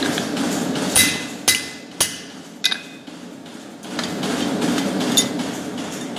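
Hand hammer blows on steel at the anvil as a forged collar is worked over a tool: four sharp, briefly ringing strikes in the first three seconds and a fifth near the end. A steady low hum of workshop machinery runs underneath, dropping away during the blows.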